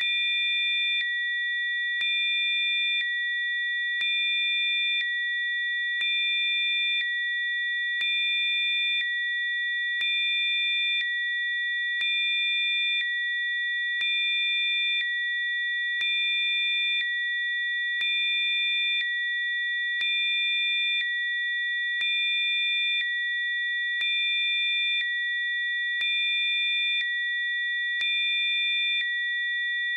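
Electronically generated Rife-frequency sine tones: a steady cluster of high, pure pitches. Fainter extra tones drop in and out every second, each change marked by a faint click, so the sound pulses gently once a second.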